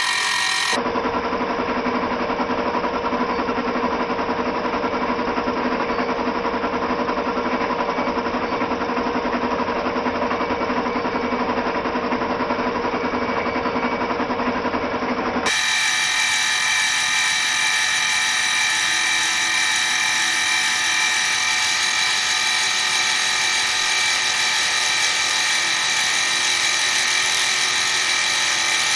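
Milling machine running steadily, its end mill cutting flats on pen blanks, a steady machine whine with several held tones. The sound changes character abruptly about a second in and again about halfway through.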